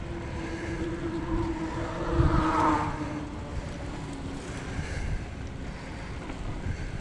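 Wind buffeting a camera microphone on a moving bicycle, a constant low rumble. A faint pitched tone swells and fades over the first three seconds.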